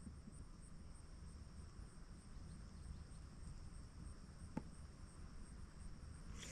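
Faint, steady high-pitched chirping of crickets, pulsing a few times a second, with a single soft click about four and a half seconds in.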